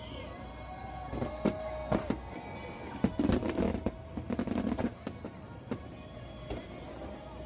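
Fireworks shells bursting in a string of sharp bangs over background music, the bangs coming thickest and loudest about three to five seconds in.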